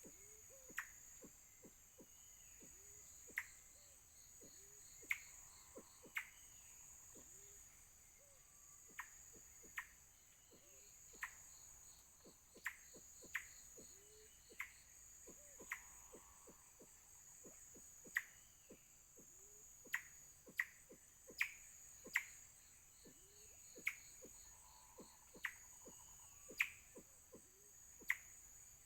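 Forest insects (crickets or cicadas) keeping up a steady high drone, with deep short hooting calls repeating low down and sharp clicks every second or so, the clicks being the loudest sounds.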